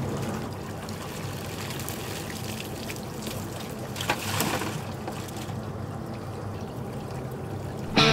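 Water trickling and running in a boat's live bait tank over a steady low hum. About four seconds in, a scoop net of live bait is lifted out and water pours and splashes from it.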